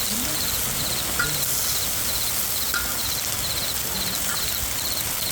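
Insects chirping in short pulsed trills, about two a second, over a steady hiss, with a few brief bird calls.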